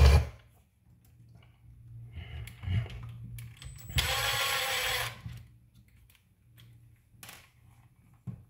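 A small handheld power tool's motor runs steadily for about a second near the middle, among scattered small clicks and taps of tools and parts being handled.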